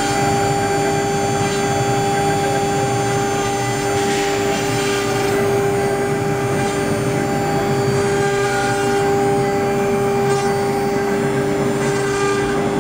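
Spindles of a double-head CNC router running while their bits engrave an MDF board. The sound is a steady whine made of several level tones over a hiss of cutting noise.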